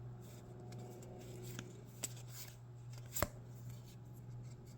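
Japanese Pokémon trading-card pack and cards being handled: soft rustling of foil and card, with a few sharp clicks, the loudest a little past three seconds in.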